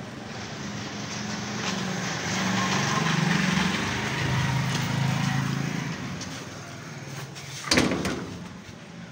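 A motor vehicle's engine running low and steady, growing louder and then fading as it passes. About three-quarters of the way through, a sudden loud sound falls sharply in pitch.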